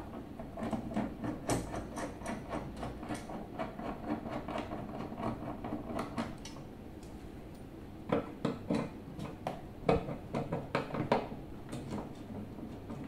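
Rapid small clicks and rattles of a screw being driven into a metal wall-mount bracket on the back of a flat-screen TV. A few louder knocks come about eight to eleven seconds in.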